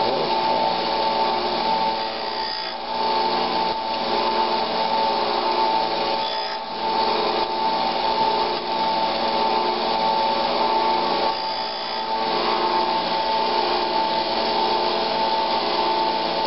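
Small disc sander running with a steady whine while the edge of an old steel chisel is pressed against the disc, grinding out a nick to square the edge. The sound dips briefly three times.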